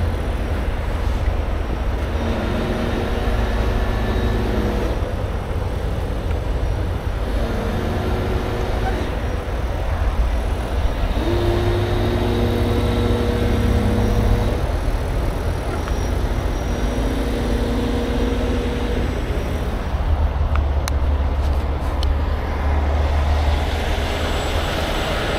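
A heavy rotator tow truck driving under way: a diesel engine runs over a steady low rumble of road noise, and its tone steps up and down in pitch several times through the gears.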